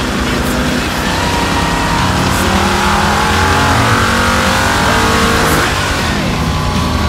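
Motorcycle engine on a rolling-road dynamometer in a full-throttle power run, its revs climbing steadily from about 2,300 to 6,000 rpm. The throttle is shut about five and a half seconds in and the revs fall away.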